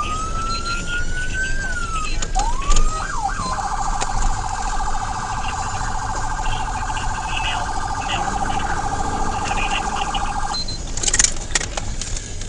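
Police car siren: a few slow wails rising and falling, then switching about three and a half seconds in to a fast warbling yelp. The siren cuts off about ten and a half seconds in, with engine and road rumble underneath throughout.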